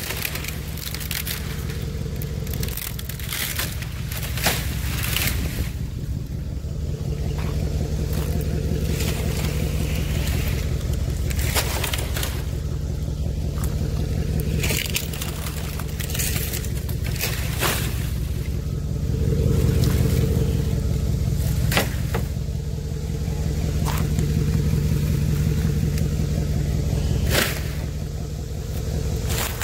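Dry, dead palm fronds crackling and scraping as they are handled, with many sharp crunches, over a truck engine idling steadily.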